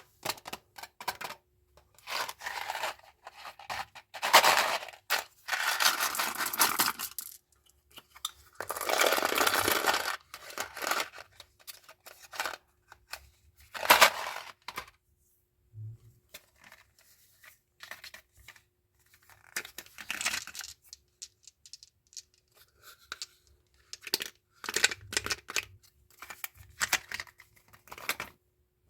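A chewing gum pack's wrapper being torn open and crinkled by hand, in irregular rustling bursts with short quiet gaps and small sharp clicks between them.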